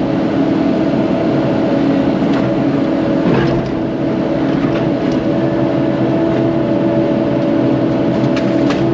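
CAT 308 excavator's diesel engine running steadily, with a few faint clicks over it.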